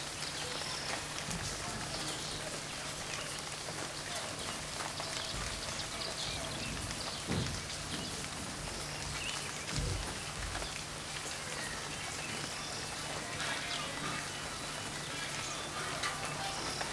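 Steady rain falling, an even hiss with scattered drop patter, over a steady low hum. There are two dull low thuds, about seven and ten seconds in.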